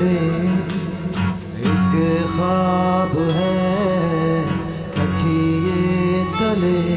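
Uttarakhandi Garhwali folk song performed live: a male voice sings a melodic line over strummed acoustic guitars.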